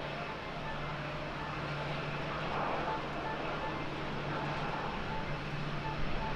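Boeing 787-9 airliner taxiing on its Rolls-Royce Trent 1000 engines at idle thrust: a steady, distant jet hum under a wash of airport noise.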